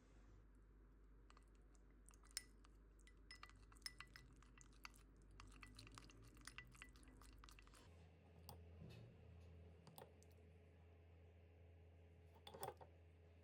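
Faint scattered clicks and light clinks over a low hum, thick for the first half, with a short cluster near the end.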